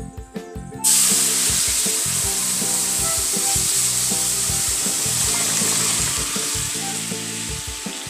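Hot spiced oil and onion masala in a wok sizzling loudly as boiled taro with its cooking water is poured in: a hiss that starts suddenly about a second in, then runs on steadily and eases slowly.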